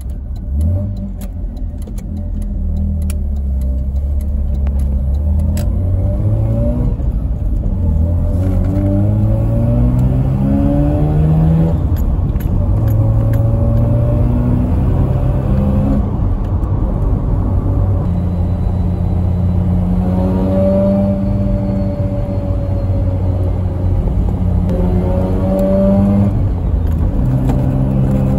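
12A bridgeported rotary engine, heard from inside the car's cabin while driving. Its pitch climbs and falls back several times as it pulls through the gears, holds steady for several seconds, then climbs once more near the end.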